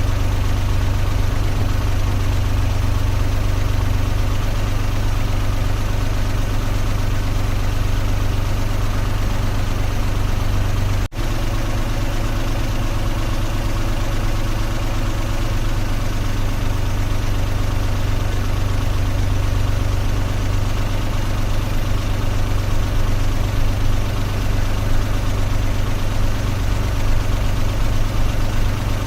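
Car engine idling steadily, a low, even hum. The sound drops out for an instant about eleven seconds in, then carries on unchanged.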